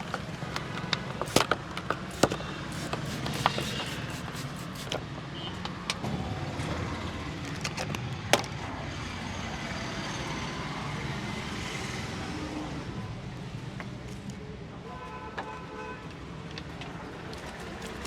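Steady street traffic noise, with scattered sharp clicks, most of them in the first few seconds and one loud click about eight seconds in.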